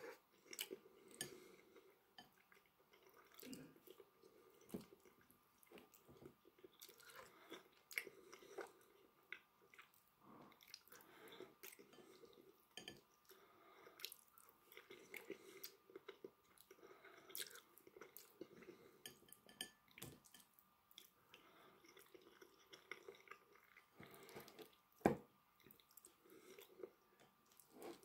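Faint, close-up chewing and mouth sounds of a person eating rice and pork, with many small scattered clicks and one sharper click near the end.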